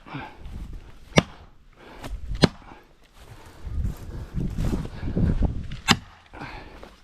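Three sharp strikes, about a second in, at two and a half seconds and near six seconds. They are blows driving an axe into the back cut of a leaning tree as a felling wedge.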